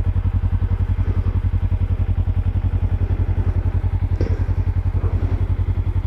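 Kawasaki Ninja 300's parallel-twin engine idling steadily with an even, fast pulse while the bike is stopped. A couple of faint clicks come over it about four seconds in and near the end.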